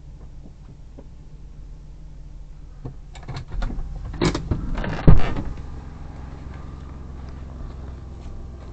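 Hyundai Terracan 3.5 V6 idling steadily, heard from inside the cabin. About three seconds in, a run of knocks and rustling from the camera being handled begins, ending in one loud sharp knock about five seconds in.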